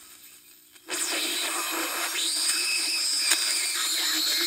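Heathkit GR-81 regenerative receiver's speaker: about a second in, the static suddenly jumps up to a loud hiss as the regeneration is turned up, the set beginning to oscillate and make its own carrier for SSB reception. High whistling tones glide in pitch over the hiss.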